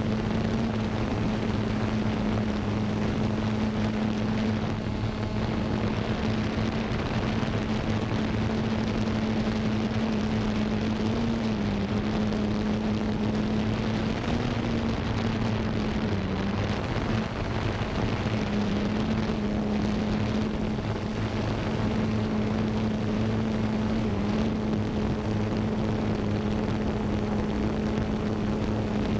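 Xiro Xplorer G quadcopter's electric motors and propellers running in flight, heard close up from the camera it carries: a steady buzzing hum over rushing prop wash, its pitch dipping and wavering slightly a few times as the drone manoeuvres.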